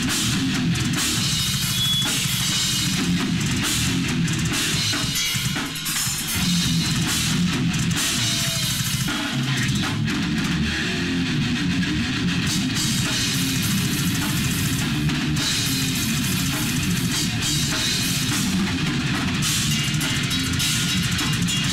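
A rock band playing in a room, from an old Hi8 camcorder recording: a drum kit with kick drum and cymbals is loudest, with electric guitar and bass guitar under it. It plays on steadily, with a brief dip about six seconds in.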